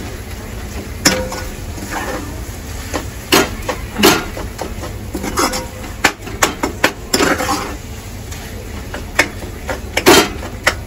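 Metal ladle scraping and knocking against a metal kadhai as a thick vegetable mash is stirred and pressed, in irregular clinks and scrapes.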